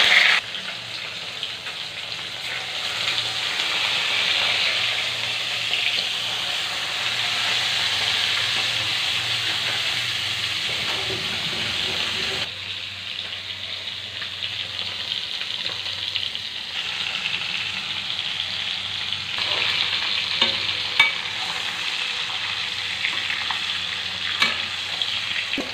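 Koi fish (climbing perch) sizzling steadily as they fry in hot oil in a pan. The sizzle drops abruptly about halfway through, then builds again. A few sharp taps of the spatula come near the end.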